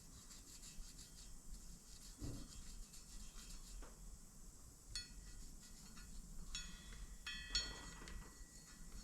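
A hand scribe scratching lines onto metal in short scraping strokes, with a few light metallic rings and clinks in the second half.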